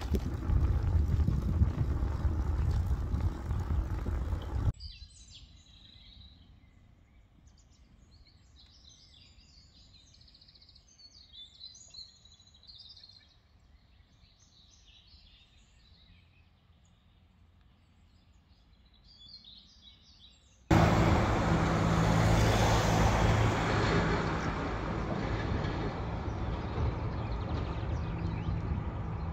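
Wind rushing over the microphone of a moving bicycle, cutting off after a few seconds to a quiet stretch of small birds chirping and singing. About two-thirds of the way in, a loud, steady rushing noise with a low hum starts suddenly and runs on.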